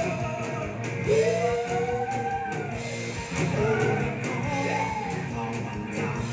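Live rock band playing: a male singer holds long sung notes over electric guitars and a drum kit.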